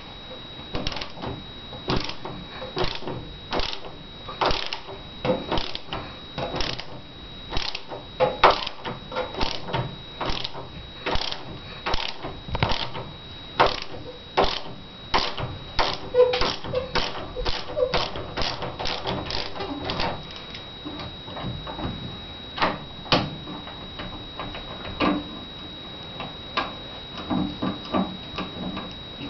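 Irregular sharp clicks and knocks, about one or two a second, becoming sparser after about twenty seconds, over a faint steady high whine.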